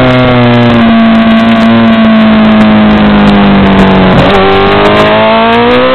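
Honda CBR1000RR SC57's 998 cc inline-four engine at high revs on track, its note sagging slowly for about four seconds as the bike runs down to a corner. About four seconds in the note changes abruptly, and the pitch then climbs steadily as it accelerates through the corner.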